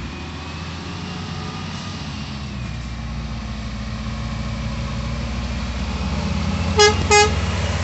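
Scania XT 540 truck's six-cylinder diesel pulling a fully loaded sugarcane road train under load, growing louder as it comes closer. Two short horn toots near the end.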